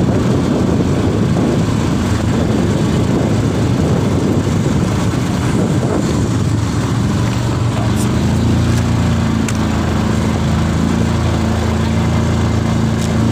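ATV (quad bike) engine running during a ride. The sound is dense and rumbling at first, and from about halfway through it settles into a steady drone.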